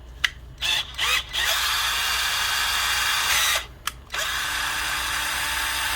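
Ryobi HP108L 8-volt cordless drill running with no load. It gives a few quick trigger blips in the first second, then two steady runs of about two seconds each, with a short stop between. It is running on freshly soldered-in replacement lithium-ion cells after the original ones died.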